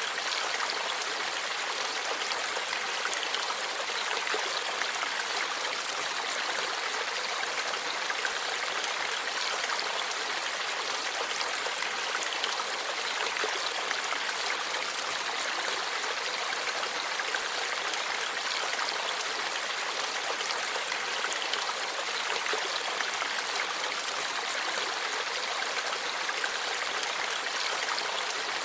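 Forest stream flowing steadily over rocks, a constant rushing babble with fine splashing and trickling.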